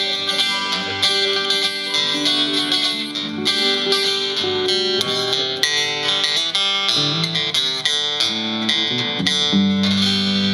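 Two acoustic guitars and an electric guitar playing together in the instrumental close of a country song: busy picked lead lines over chords, settling into a held chord near the end.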